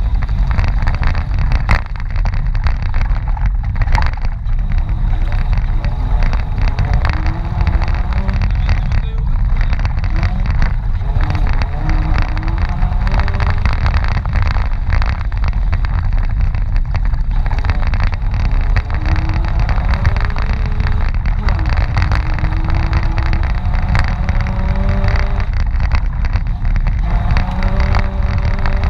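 Mitsubishi Pajero's engine running hard, its note rising again and again as it revs, under a heavy rumble with frequent knocks and rattles.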